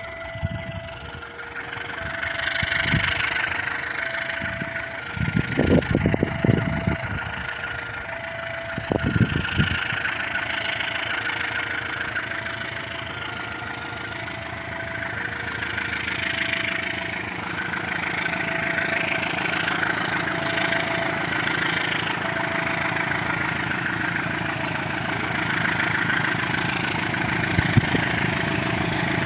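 Railway level-crossing warning alarm sounding a repeating two-note signal, about one note a second, which warns that a train is coming. Under it, vehicle engines idle and run. Heavy low rumbles come around six and nine seconds in.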